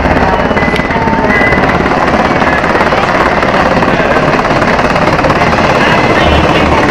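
Military helicopter flying low overhead, its rotor blades chopping loudly and steadily.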